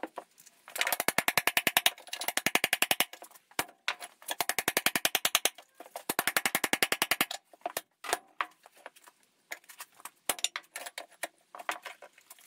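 Hammer blows on a steel tractor wheel rim and angle-iron wedge, working a rear tyre's bead off the rim. Rapid runs of sharp metallic knocks, about fifteen a second, come in four bursts of one to two seconds, then give way to scattered single knocks in the second half.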